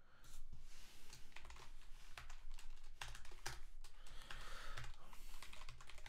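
Typing on a computer keyboard: a quick, uneven run of key clicks that starts about a third of a second in.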